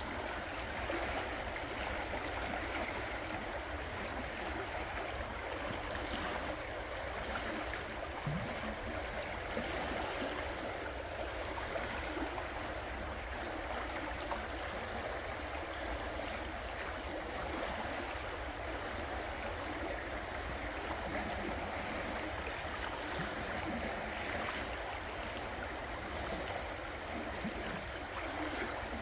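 River water flowing over rocks, a steady rushing with gurgling.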